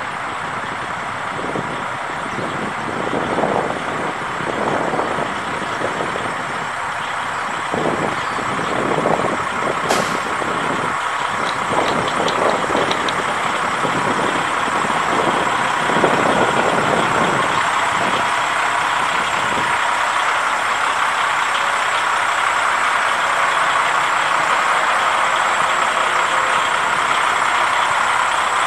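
Kenworth T800 semi tractor's Paccar MX six-cylinder diesel engine running as the truck drives slowly and turns, with one sharp click about ten seconds in.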